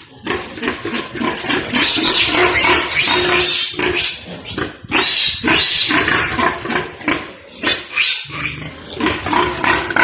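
Pigs squealing loudly in repeated shrill screams with short breaks between them, the sound of pigs being caught or held.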